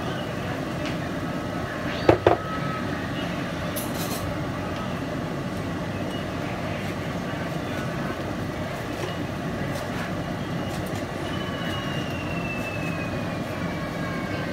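Kitchen exhaust fan running with a steady noise, with two sharp clicks about two seconds in.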